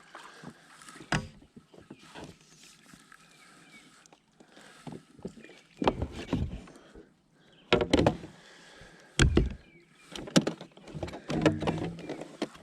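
Kayak paddling: irregular paddle strokes in the water with knocks and clunks of the paddle and gear against the Vibe Sea Ghost 130's plastic hull, including a few sharp clicks.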